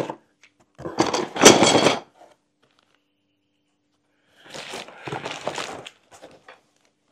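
Stiff plastic trellis panels clattering as they are handled and set down on a bench, then a cardboard box rustling and scraping as it is searched through.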